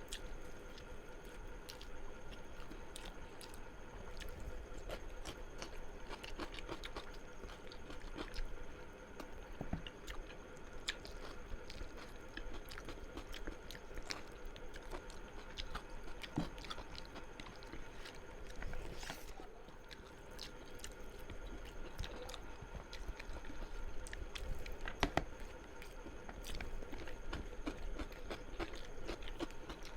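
A person chewing and biting food close to the microphone, with many small mouth clicks and smacks and a few sharper crunches.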